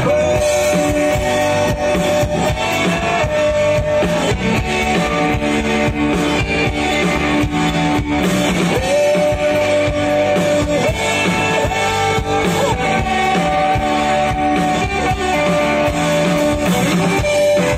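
Live rock band playing an instrumental passage. A lead guitar holds long notes that slide up in pitch, over strummed guitars, bass and drums.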